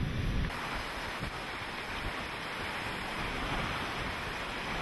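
Hurricane wind blowing as a steady hiss. Deep wind buffeting on the microphone in the first half second stops abruptly.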